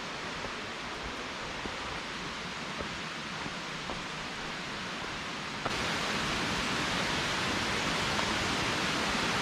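Steady rushing of distant flowing water, a river or waterfall, with a few faint ticks in the first half. About six seconds in it becomes suddenly louder and brighter and stays that way.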